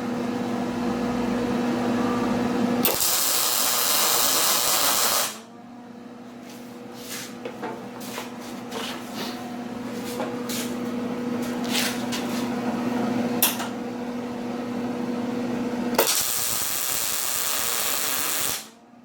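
MIG welder laying two tack welds on steel: two bursts of arc hiss and crackle, each lasting about two and a half seconds, one about three seconds in and one near the end. The welder's steady hum runs underneath, with scattered clicks between the welds.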